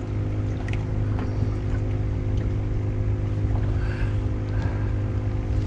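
Boat motor running steadily with an even, unchanging hum.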